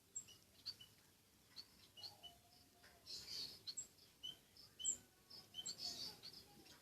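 A small pet munia giving many short, high chirps, scattered irregularly and faint.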